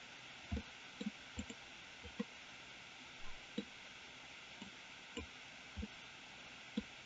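Faint, irregular clicks and light knocks from a computer mouse and keyboard while working in 3D software, about a dozen spaced unevenly, over a low steady hiss.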